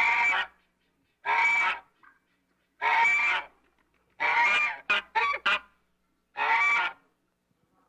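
A goose honking repeatedly. Each honk lasts about half a second, with a short pause between them, and a quick run of three short honks comes about five seconds in.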